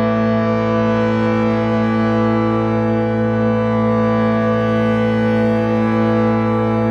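Steady synthesized meditation drone sold as a 528 Hz healing tone: a sustained chord of held tones that does not change, with no beat or attacks.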